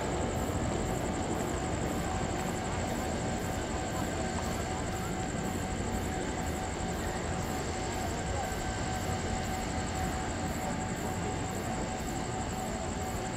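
Turbofan jet engines of a taxiing twin jet with tail-mounted engines, running at idle thrust: a steady rumble with a constant whine.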